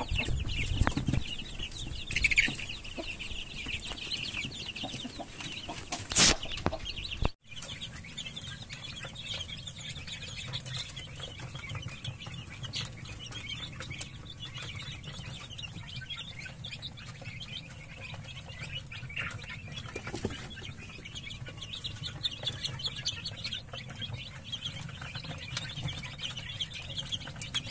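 A brood of young Rhode Island Red chickens cheeping and clucking in a steady chatter of many short high calls. A sharp click sounds about six seconds in, the sound cuts out abruptly a moment later, and the cheeping carries on over a low steady hum.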